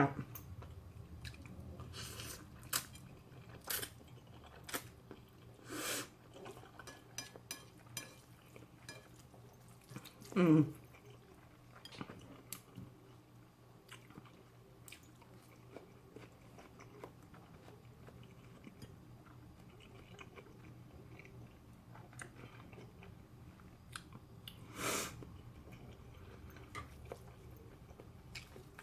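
Close-up eating sounds: soft chewing clicks and mouth noises, with a short vocal sound falling in pitch about ten seconds in.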